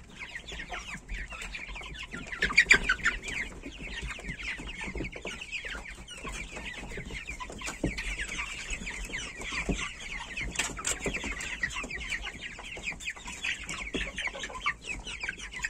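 A flock of young chickens, half-grown pullets and cockerels, peeping and cheeping constantly in many short high calls while they crowd and feed at a tray of mash.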